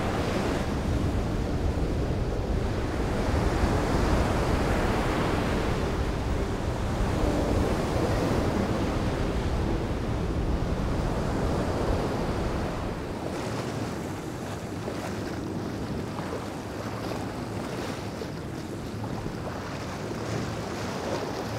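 Surf breaking and washing up a sandy beach, a steady rushing. About two-thirds of the way through it gives way to a quieter, thinner rush of wind and open sea.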